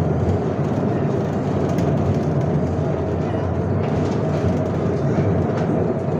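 Small tourist train running through a salt-mine tunnel, heard from inside its open carriage: a steady, low-pitched running noise that does not let up.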